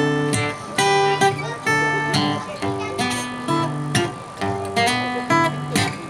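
Acoustic guitar strumming chords in a steady rhythm, each stroke ringing on: an instrumental introduction to a sung song.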